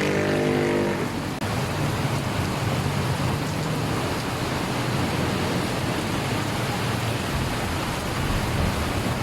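Heavy rain pouring down in a steady, dense hiss, with the hum of vehicle engines in the traffic underneath.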